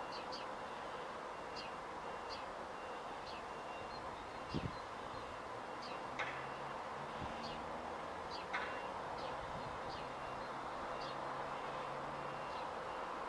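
Distant lorry manoeuvring in a yard: a steady engine hum with a faint reversing alarm beeping on and off. Small birds chirp over it, with a couple of brief knocks near the middle.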